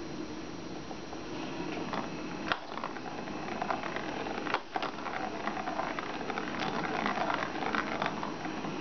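Steady background hiss with two sharp clicks, about two and a half and four and a half seconds in, from kittens playing at a plastic ball-track cat toy.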